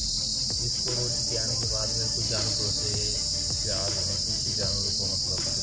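Steady, high-pitched insect chorus, unbroken and even in level.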